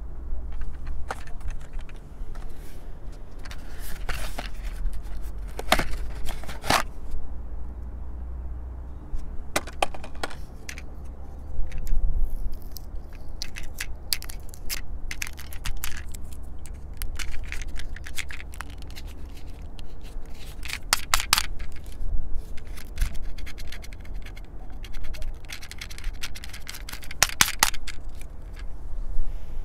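Irregular clicks, rattles and scrapes of a plastic Toystar Spy-R toy airsoft revolver being handled and worked in the hand, some coming in quick clusters, over a steady low rumble.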